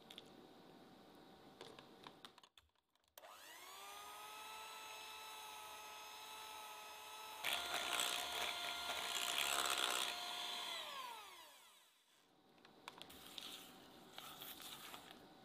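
Electric hand mixer starting up with a rising whine, running steadily, then louder as its beaters churn through thick cake batter for about three seconds, before winding down with a falling whine.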